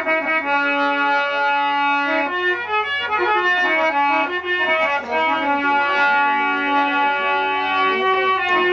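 Live instrumental music with no singing: a melody of held notes played on a keyboard instrument, over a low steady hum.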